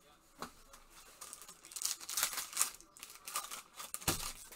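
Foil trading-card pack being torn open, with its wrapper crinkling in gloved hands. There is a sharp click about half a second in and a louder knock near the end.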